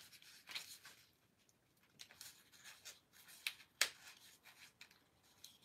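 Faint rustling and creasing of paper being folded and pressed down by hand on a glass craft mat, with a few short crisp crackles, the sharpest nearly four seconds in.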